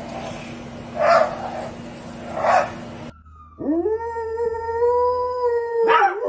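A dog gives two short barks about a second apart, then a dog howls: one long note that rises at the start and holds steady for about two seconds.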